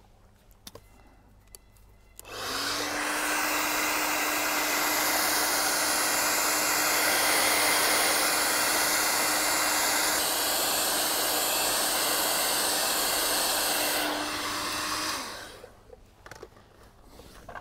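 Handheld hairdryer switched on about two seconds in, blowing with a steady rush of air and motor hum for about thirteen seconds, then switched off, its hum dropping as it winds down. It is warming the adhesive behind a motorcycle tank badge to loosen it.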